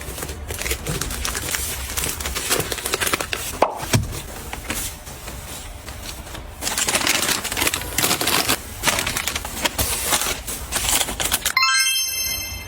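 Objects being handled at close range: rapid clicks, taps and crinkling. Near the end comes a brief cluster of high ringing tones stepping upward.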